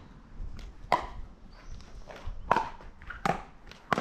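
Pickleball paddles striking the hard plastic ball in a rally: four sharp pops at uneven spacing, with fainter taps in between.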